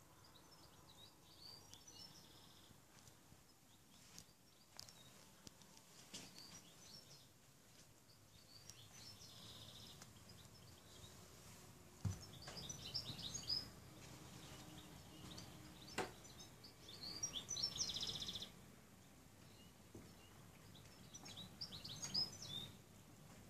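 Faint birdsong: scattered chirps and short trills from small songbirds over quiet open-air background, with a couple of sharp clicks.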